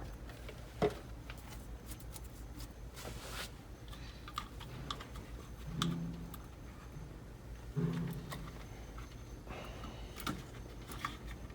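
Scattered light clicks, taps and rubbing as wires taped to a welding rod are worked and pulled through a rubber grommet boot, with two short low squeaks about halfway through and near the end, over a steady low hum.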